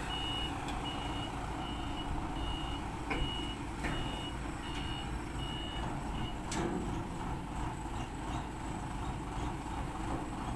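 Forklift's reversing alarm beeping evenly, a little over one beep a second, over its engine running; the beeping stops about two-thirds of the way through.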